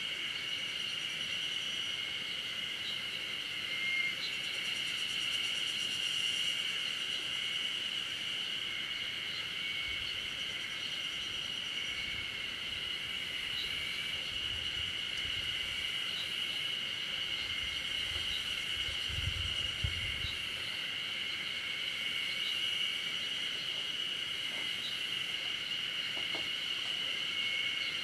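Forest ambience of a steady, high-pitched insect chorus that holds one even drone throughout, with faint short chirps above it. A faint low rumble rises and fades around the middle.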